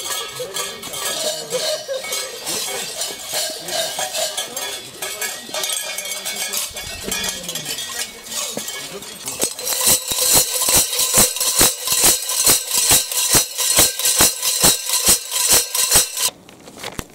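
Many metal bells on sheepskin devil masquerade costumes jangling as the wearers walk. About two-thirds of the way in, a close cluster of tube-shaped bells on one costume clangs in a steady rhythm, about three strokes a second, then cuts off suddenly shortly before the end.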